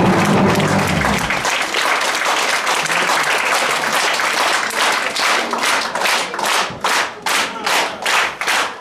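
Theatre audience applauding. The orchestra's closing sound stops about a second and a half in, and from about six seconds in the applause falls into rhythmic clapping in unison, about two to three claps a second.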